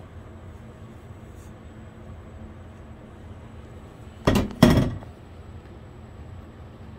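Two sharp knocks of kitchenware close together about four seconds in, the second with a short ringing tail, over a steady low hum.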